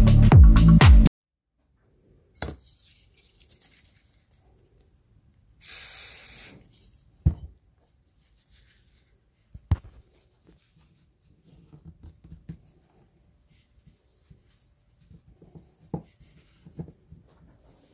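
Electronic dance music cuts off about a second in, leaving quiet handling at a table: a few sharp knocks and a hiss of spray lasting about a second, as solvent goes onto a coin to dissolve permanent marker. Faint rubbing and light taps follow near the end.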